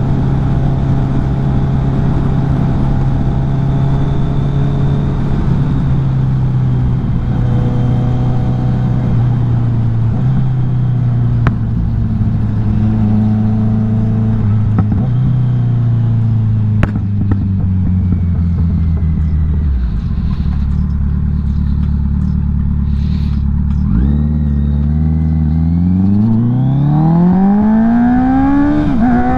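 Kawasaki Z900's inline-four engine cruising at steady revs, then dropping in pitch in steps as the bike slows. It runs low for a few seconds, then revs up in a long rising sweep near the end as it accelerates.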